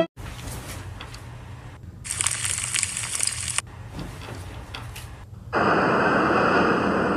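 Bedding rustling and crackling for about a second and a half as someone moves under a duvet. Near the end comes a louder, steady rush of blizzard wind with a thin whistling tone in it.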